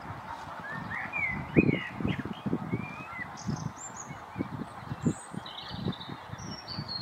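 Songbirds singing short chirps and rising whistled phrases, over irregular low rumbles of wind buffeting the microphone, which are the loudest part.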